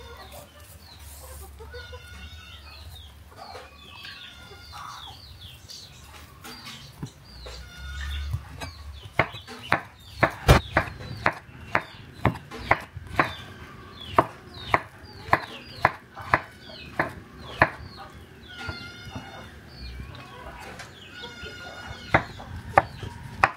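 A run of sharp knocks, about one and a half a second, through the middle stretch and again near the end, over birds clucking and calling in the background.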